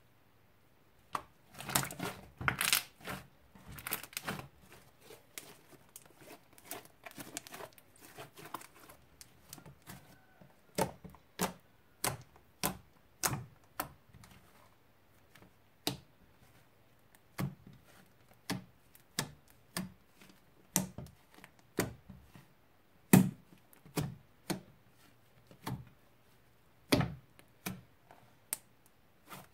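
Fluffy shaving-foam slime being stretched, poked and pressed by fingers, giving sharp little clicks and pops. A dense run of them comes a second or so in, then single pops about once a second.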